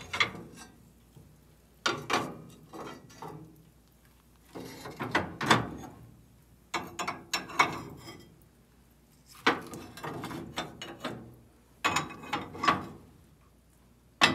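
Cast iron lids of a wood-burning cookstove clanking and scraping as they are lifted, slid and set back down with a metal lid lifter, in about six bursts a couple of seconds apart.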